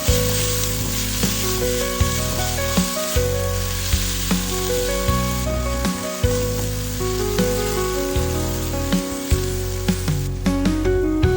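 Food sizzling as it fries in hot oil in a pan, under background music with melody and a steady beat.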